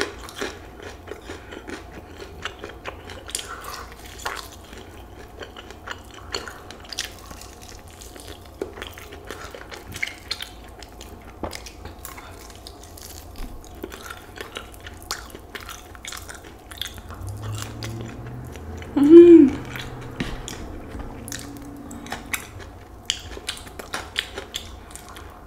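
Close-up chewing and crunching of crispy fried chicken wings, a steady run of small irregular crunches and mouth clicks. A short hummed "mm" comes about 19 seconds in.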